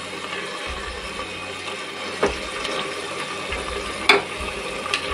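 A steel spoon stirring mutton in an aluminium pressure cooker, knocking sharply against the pot three times: about two seconds in, at about four seconds (the loudest), and near the end. Under it runs a steady hiss.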